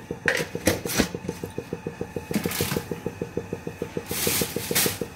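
Cumin seeds in hot oil in a non-stick wok giving a few short sizzling hisses, over a rapid, even low ticking of about nine a second that runs throughout.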